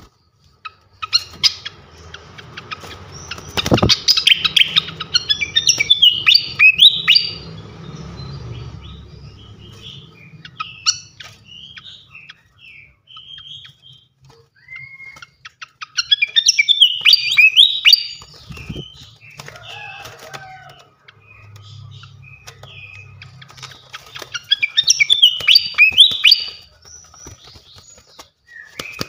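Srikatan kipas songbird singing in phrases of rapid, high chirping notes, with short pauses and scattered single chirps between phrases. A faint low hum runs under some phrases.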